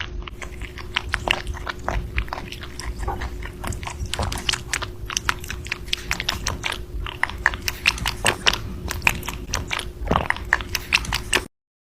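An animal chewing something crunchy close to the microphone: a rapid, irregular run of crisp crunches over a faint steady hum.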